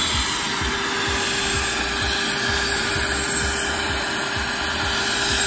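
Vacuum cleaner running steadily, a constant whine over a broad rushing noise, typical of vacuuming out a car. Faint regular low thumps run underneath.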